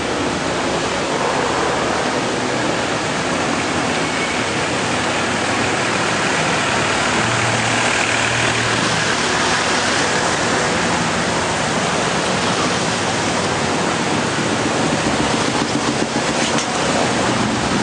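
Motor vehicle engines running low under a steady, loud wash of noise, with a few soft knocks near the end.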